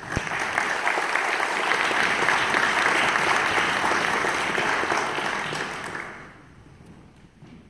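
Audience applauding, building quickly and dying away after about six seconds.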